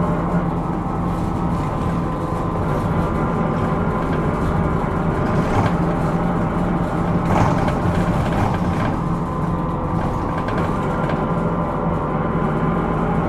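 Hino Rainbow II non-step route bus running, heard from inside the cabin: a steady engine hum, with a few short rattles around the middle. The bus is recorded for its abnormal running noise.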